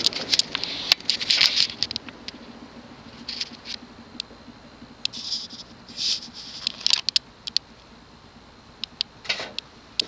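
Union Super 36 ceiling fan coasting down after being switched off. Its bearings give irregular clicks and clunks, and a faint motor hum fades out within the first few seconds. The bearings are a little clunky, which the owner puts down to storage rash in the box.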